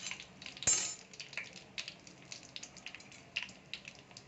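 Whole spices, bay leaf and cinnamon among them, crackling in hot ghee in an aluminium kadai: scattered small pops, with one louder crack just under a second in.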